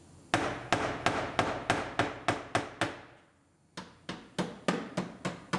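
Hammer blows on the crumpled sheet metal of a Lexus IS 250's rear wheel opening (dog leg), about three a second with a short ring after each, a brief pause a little past halfway, then the blows resume. The panel is held under tension by a hydraulic pulling clamp while its kinks are hammered out.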